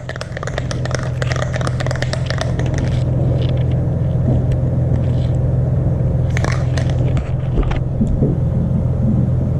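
A steady low mechanical rumble with a hum, like a motor running. Over the first few seconds there is a hissing, rustling noise, and a few sharp clicks come about two-thirds of the way through.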